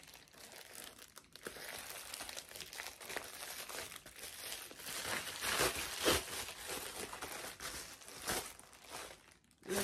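Plastic Amazon mailer bag crinkling and tearing as it is pulled open by hand, with irregular rustling throughout and a run of louder rips about halfway through.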